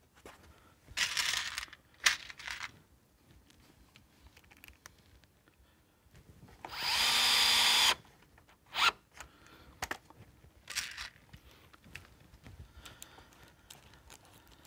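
Festool cordless drill driving a screw through a metal drawer slide into plywood, in one burst of about a second and a half, a steady whine. Around it, short knocks and scrapes as the drawer and slide are handled.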